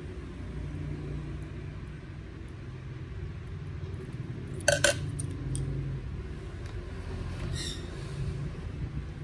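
A steady low hum, with one short, sharp clink a little before halfway through.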